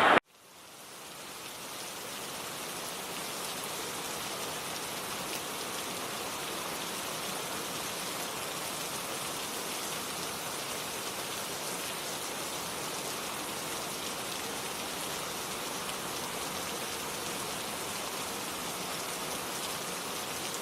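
Steady rainfall: an even hiss of many drops falling on a surface, fading in over the first couple of seconds and then holding level, with no thunder.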